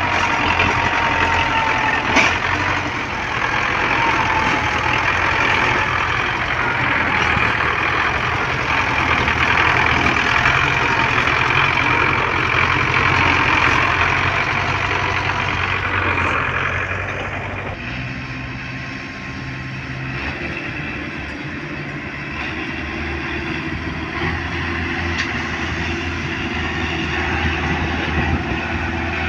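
Tractor diesel engine running steadily under load, hauling a heavily loaded sugarcane trolley. It is louder and closer in the first half, then drops to a quieter, more distant running sound about 17 seconds in.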